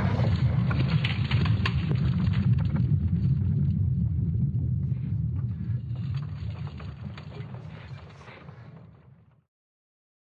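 A low, noisy rumble with scattered crackle, fading out over the last few seconds and stopping about nine seconds in.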